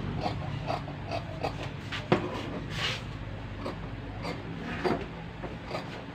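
Scissors snipping through cloth along a marked line, a run of short cuts about three a second, with one sharper click about two seconds in.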